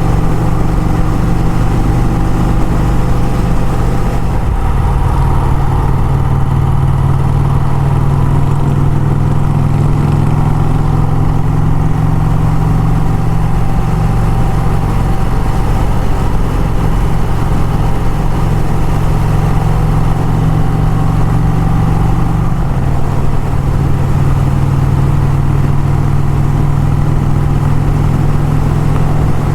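Vintage motorcycle engine running steadily at road speed, heard while riding. Its note shifts slightly twice, about four seconds in and again a little past twenty seconds.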